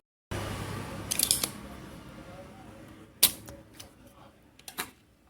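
Small sharp clicks and taps of hand tools working on a CRT TV's circuit board while a capacitor is removed: a short cluster about a second in, one loud snap a little after three seconds, and a few light ticks near the end.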